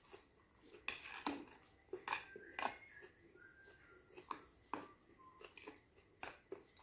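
A metal fork clicking and scraping against a plastic food container as salad is picked up, in a series of faint, irregular short clicks.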